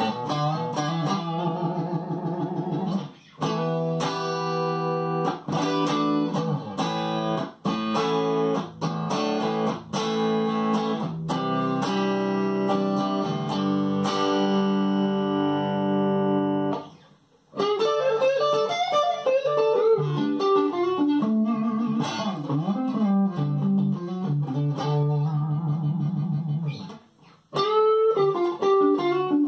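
Electric guitar, a Fender Strat Deluxe with Vintage Noiseless pickups, played clean through a home-built diode compressor pedal with sustain and volume at halfway, giving light, fairly transparent compression. Ringing chords first, then after a brief pause about halfway, single-note lines with bent notes.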